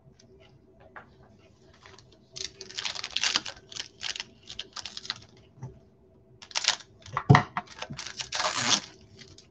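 Crinkly rustling of trading-card packs and cards being handled, in two spells, with a sharp knock in the second.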